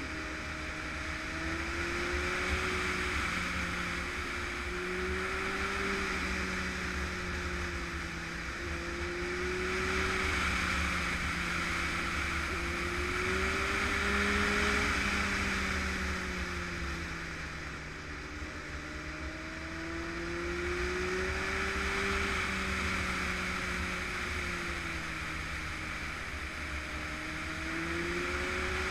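Honda sport motorcycle riding at speed through bends, its engine note rising and falling gently every few seconds as the throttle is rolled on and off, under a steady rush of wind.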